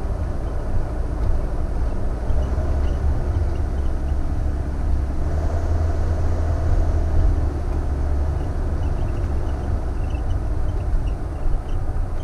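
Road and engine noise of a Thor Vegas Class A motorhome driving, a steady low rumble that grows heavier for several seconds in the middle.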